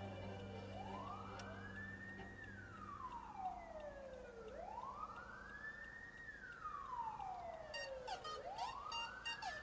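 Siren wailing, its pitch rising and falling slowly, about once every four seconds. Near the end a rapid run of sharp clicks or knocks joins it.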